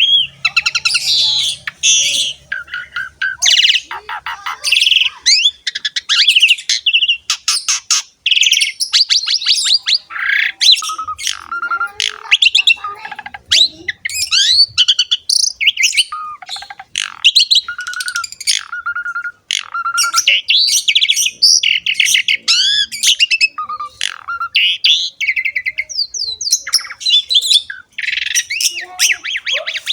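Javan pied starling (jalak suren) singing a long, varied song: fast chattering trills, clear whistles and harsh squawky notes following one another without pause.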